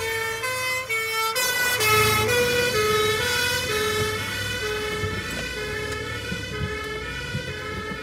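Fire engine's two-tone siren, switching back and forth between two notes about twice a second, over a vehicle engine rumble. It grows fainter toward the end.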